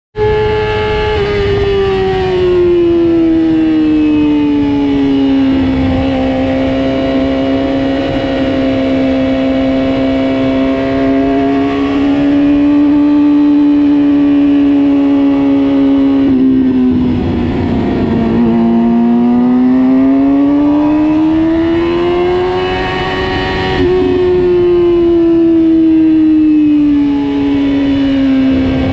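Racing motorcycle engine heard from a camera mounted on the bike, running hard at steady high revs. Its pitch drops early on as the bike slows, breaks up briefly around the middle, climbs again as it accelerates and eases off near the end.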